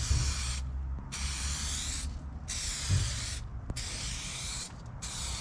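Aerosol can of two-part clear coat spraying onto a plastic headlight lens in five short hissing passes of about a second each, with brief pauses between them, laying down the second coat.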